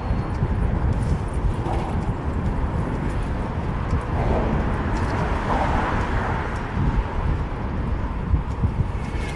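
Wind buffeting an action camera's microphone, mixed with the tyre noise of a fixed-gear bicycle rolling along a bridge bike path. The rumble swells for a few seconds in the middle, and a few light clicks can be heard.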